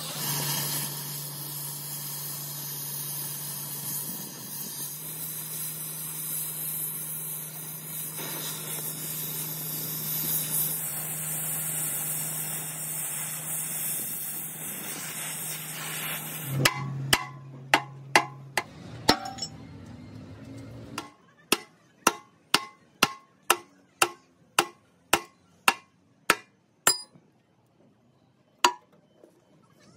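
Oxy-fuel cutting torch hissing steadily as it cuts through the steel of an excavator bucket, over a low steady hum. About sixteen seconds in the hiss stops, and a run of sharp knocks follows, about two a second.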